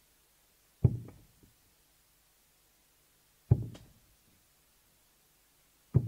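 Three steel-tip darts thudding one by one into a Winmau Blade 6 bristle dartboard, about two and a half seconds apart, each hit a short sharp knock that dies away quickly.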